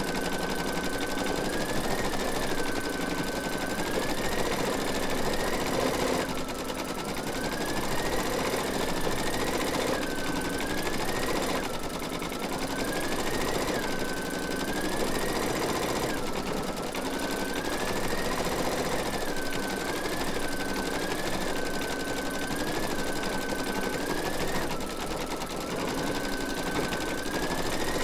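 Embroidery machine stitching free-standing lace: a fast, even needle clatter over a motor whine that keeps rising and falling in pitch, dipping sharply every few seconds.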